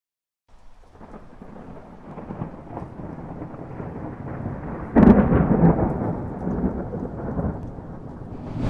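Thunderstorm: rain and a low rumble of thunder fading in, with a sudden loud thunderclap about five seconds in that rolls on afterwards.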